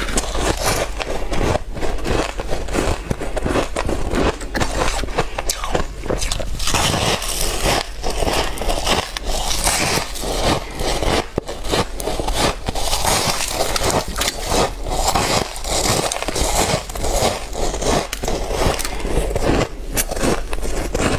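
Dry, flaky white ice being bitten and crunched, a dense unbroken run of crisp cracks and crackles.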